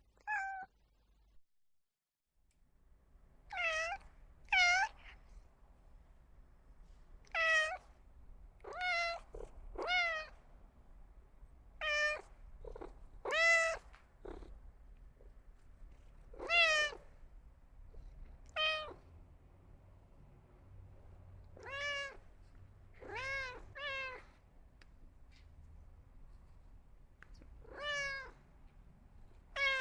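A cat meowing over and over: about fifteen short meows, spaced one to a few seconds apart.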